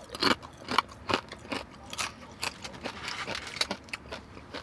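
Close-miked eating: a string of short, crisp crunches and clicks of chewing, a few every second.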